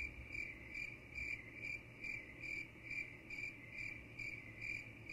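Cricket chirping steadily, just under three even chirps a second: the stock 'awkward silence' cricket sound effect laid in during a pause.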